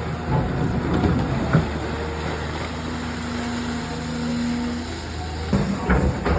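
Excavator's diesel engine running steadily with a pitched hydraulic whine that strengthens midway. There are several knocks in the first second or so and again near the end.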